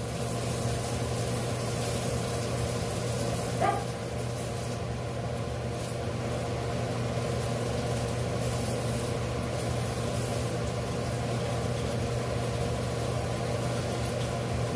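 Pork ribs frying in hot oil, a steady sizzle over a constant low hum, with one brief clink about four seconds in.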